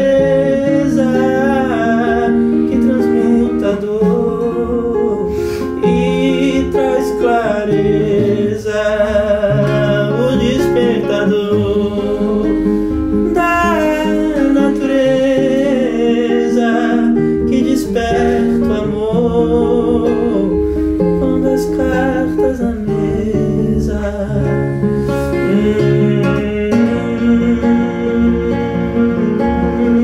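Nylon-string classical guitar playing, with a man's voice singing without words over it.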